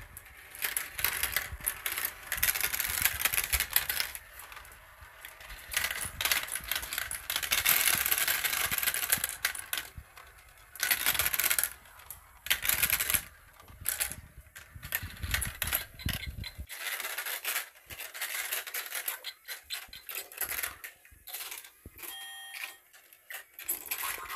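Marbles rolling and clattering through a plastic marble run: continuous rattling as they circle the plastic funnels and drop through the tubes, coming in loud stretches of a few seconds with many sharp clicks. The rattling thins out to scattered clicks in the last third.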